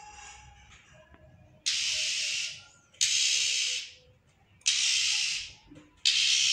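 Cucak ijo (green leafbird) giving four harsh, noisy, hiss-like calls, each just under a second long and starting abruptly, at intervals of about a second and a half.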